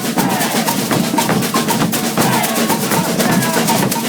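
Maracatu percussion ensemble playing a fast, dense rhythm on drums, snare drums, shakers and bells, with voices singing over it.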